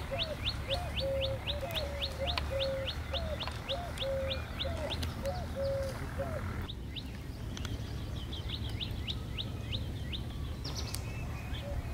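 Birds chirping: a quick run of short, high, rising chirps, about three a second, with a lower repeated call underneath, over a steady low rumble of outdoor background noise.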